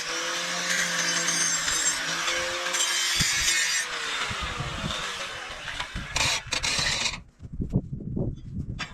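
Power tool grinding on steel, running steadily, with its pitch sagging a little under load, then stopping about seven seconds in; a few light metal clinks and knocks follow.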